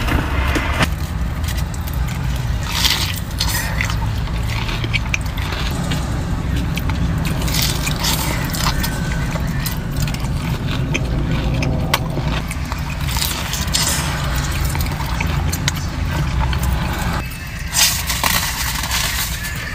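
Steady low rumble of a car heard inside its cabin, with scattered crunchy bites of fried chicken and crinkles of wrapper paper.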